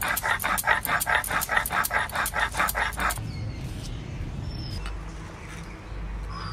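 Coriander and cumin seeds being ground on a flat grinding stone (shil-nora): a quick run of rhythmic scraping strokes, about five a second, that stops about three seconds in. After that there is a low hum and two faint short falling chirps.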